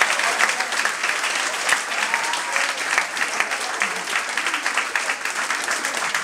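A small crowd applauding, many hands clapping together, with a few voices heard through it.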